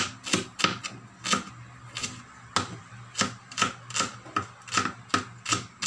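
Large kitchen knife slicing small onions on a plastic cutting board: sharp knocks of the blade striking the board, about two or three a second, unevenly spaced.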